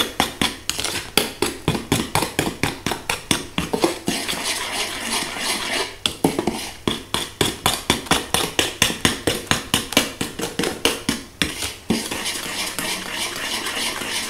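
Metal spoon stirring a thin batter of eggs, sugar and sour cream in a plastic bowl, clicking against the bowl about four times a second, with a couple of stretches of steadier scraping.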